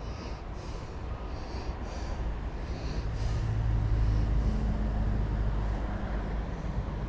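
A passing engine: a low, steady hum that grows louder to its peak about four seconds in and then eases off.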